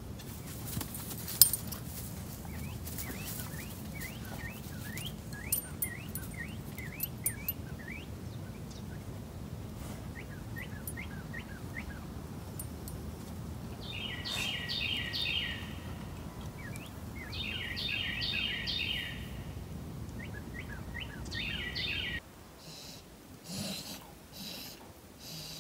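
Wild birds chirping and singing over a steady low rumble, with a sharp knock about a second in. The calls grow louder in three bouts in the second half. Near the end the birds and rumble cut off, leaving soft rhythmic breathing from an animal.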